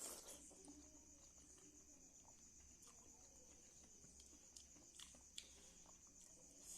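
Faint eating sounds: a few soft, sharp mouth clicks while chewing, the loudest near the start and around five seconds in, over a steady faint high-pitched hiss.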